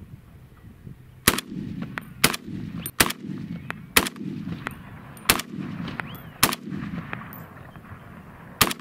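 Century Arms C308 semi-automatic battle rifle firing 7.62x51 rounds: about seven single shots at an unhurried pace, roughly a second apart, each trailed by a brief echo.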